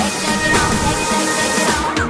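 Background music: an electronic track with sustained synth tones.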